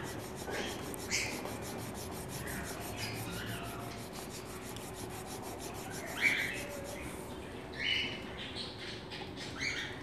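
A garlic clove rubbed back and forth on a wet sharpening stone, a steady rhythmic scraping as the clove is ground to a paste. A few short chirps come through, the loudest just after six seconds and near eight seconds.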